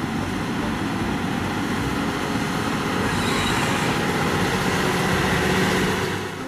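Steady vehicle noise, an even mechanical din that drops away suddenly at the end.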